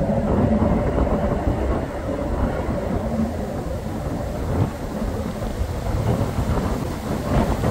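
Passing Sydney harbour ferry Fishburn's engines giving a steady low rumble over churning water, with a hum that fades out about two seconds in as the ferry draws away.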